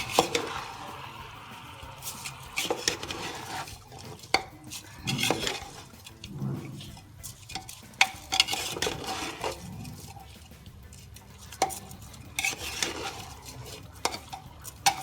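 A spoon stirring washed rice and vegetables in an open pressure cooker, with irregular knocks and scrapes against the pot over a low frying sizzle.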